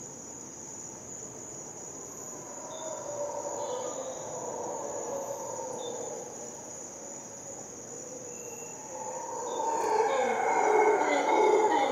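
Dawn rainforest chorus: howler monkeys roaring in the distance, swelling much louder about ten seconds in, over a steady high-pitched insect trill.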